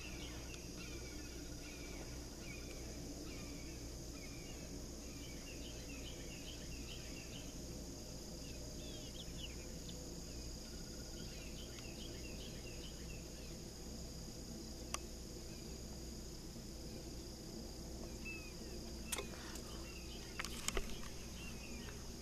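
Outdoor insect chorus trilling steadily at a high pitch, with small birds chirping over it again and again. A few sharp clicks come near the end.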